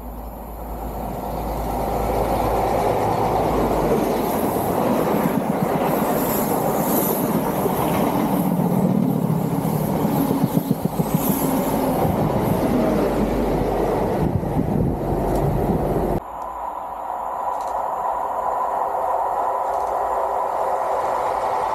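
InterCity 125 HST with Class 43 diesel power cars running through a station. The noise builds as the train approaches, then the Mark 3 coaches pass close by, with a quick run of wheel clacks over rail joints about halfway through. About 16 s in, the sound cuts off abruptly to a second HST approaching from a distance, its diesel power car running steadily and growing louder.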